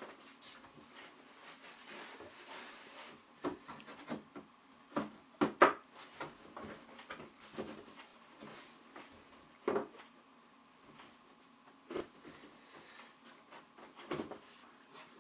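Scattered knocks, clicks and rubbing of the games table's wooden board and frame rails being handled and pressed together, with the loudest sharp knock about five and a half seconds in.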